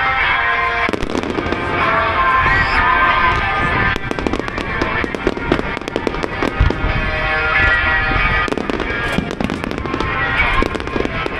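Fireworks display: shells bursting in rapid, overlapping bangs starting about a second in, over music playing throughout.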